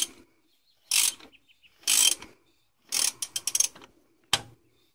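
Half-inch drive ratchet clicking in short bursts, about one a second, as it is swung back between strokes while loosening an oil filter cartridge housing counterclockwise. About three seconds in there is one longer run of rapid clicks.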